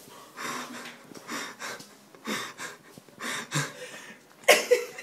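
A person snoring: breathy, rasping snores about once a second, ending in a louder snort near the end.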